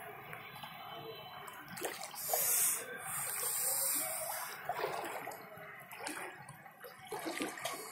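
Floodwater on a street sloshing and splashing, with a loud rushing hiss of water for about a second, about two seconds in.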